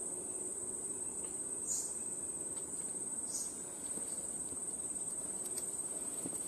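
Steady high-pitched insect chorus, unbroken throughout.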